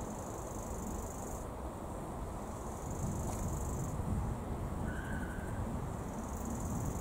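Insects trilling high-pitched in spells of a second or more, over a steady low rumble.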